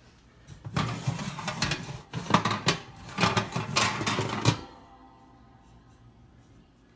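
A wire oven rack rattling and clattering under a hand, in an irregular run of metal knocks lasting about four seconds, then stopping.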